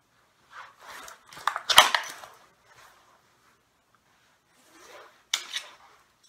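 Jacket rustling as a Glock 17 Gen 4 is drawn from a Kydex outside-the-waistband holster, with a sharp click as the pistol comes free about two seconds in. Near the end, two sharp clicks as the magazine is released and pulled from the grip.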